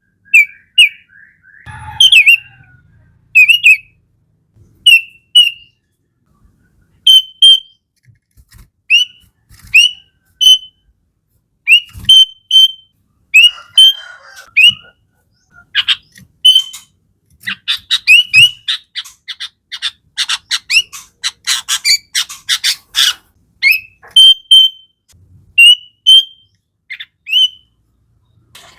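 Sooty-headed bulbul (kutilang) singing: short, loud whistled notes in twos and threes, breaking into a fast run of rapid notes around the middle.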